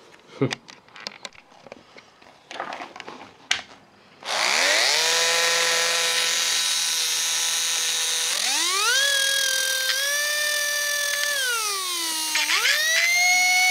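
Small 380-size brushed DC motor, overdriven from a bench power supply to burn it out, cutting out at first, with a few seconds of scattered clicks and crackles. It then spins back up with a high whine that steps up in pitch, sags near the end and jumps up again.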